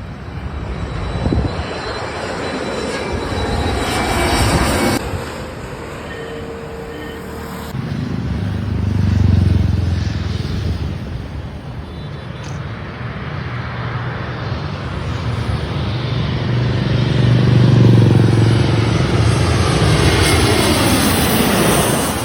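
Jet airliners passing low overhead on landing approach, one after another. The engine noise swells and fades as each goes by, with a sliding whine near the end.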